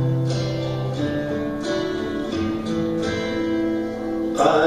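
Guitar being strummed, each chord struck and left to ring before the next change about every second.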